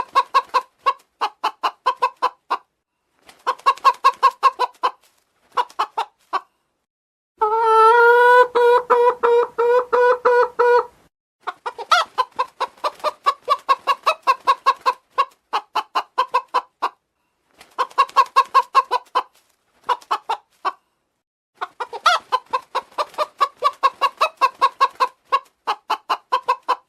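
Domestic chicken clucking in quick runs of short clucks with brief silent gaps between them, and one long drawn-out call of about three and a half seconds a third of the way in.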